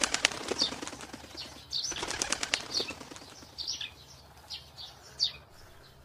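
Bird wings flapping in quick flurries, a flying-bird sound effect: one burst at the start, another about two seconds in, then fainter flaps.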